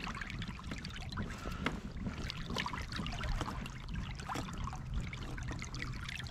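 Small splashes and trickling of water around a striped bass held by the lip at the kayak's side as it is revived, over a low rumble of wind on the microphone.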